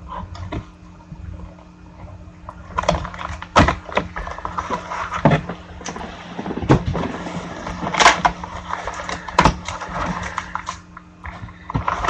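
Cardboard trading-card box and its foil packs being handled and searched, with irregular crinkling, rustling and light knocks.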